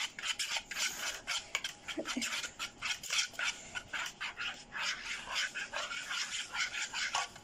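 Silicone spatula scraping and stirring thick chocolate batter in a plastic graduated pitcher, with repeated short rasping strokes a few times a second.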